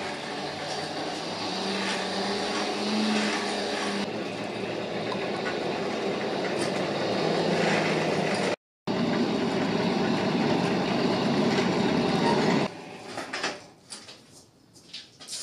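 Hand-cranked cast-iron forge blower being turned steadily: a whirring rumble of its gears and fan, with air blasting into the coal fire. The cranking stops about 13 seconds in, leaving only faint scattered sounds.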